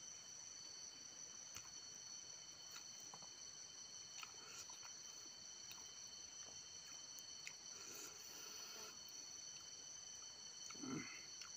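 Insects droning steadily at a high pitch in several held tones, over faint clicks and smacks of chewing and of fingers working rice and pork belly, with a brief louder mouth sound near the end.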